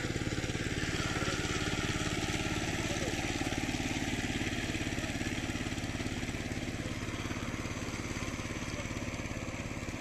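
A small engine running steadily with a fast, even beat, fading slightly toward the end.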